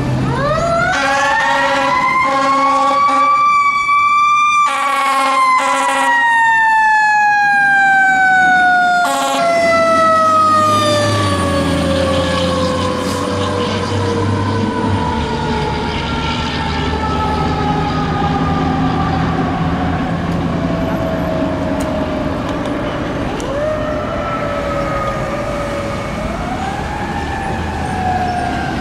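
Fire engine siren winding up to a high pitch over the first few seconds, then slowly winding down for a long stretch, and pushed back up twice near the end. It comes with several horn blasts over the first nine seconds and the truck's engine rumbling as it passes.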